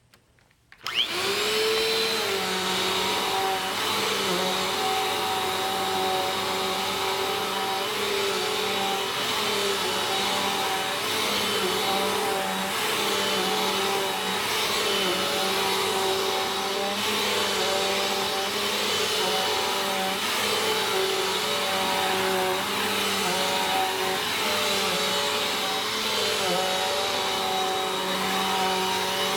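Bissell vacuum cleaner switching on about a second in, its motor whine rising as it spins up, then running steadily with small dips in pitch now and then.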